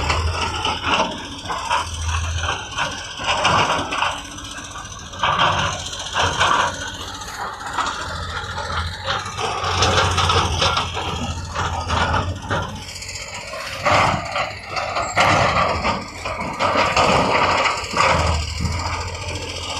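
Heavy earthmoving machinery at work: irregular rattling, scraping and knocks over an intermittent low engine hum.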